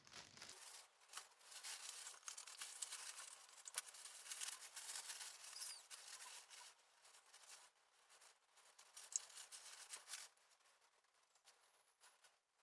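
Faint rustling and scratching with small sharp clicks, from hands working the model-building materials (polyfoam, plastic) at the bench. It stops about ten seconds in.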